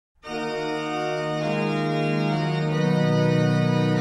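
Organ music: slow, held chords that start a moment in and change about every second and a half.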